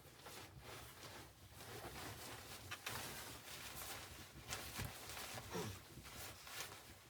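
Irregular rustling and scuffing, a string of soft noisy strokes that grows busier after the first couple of seconds.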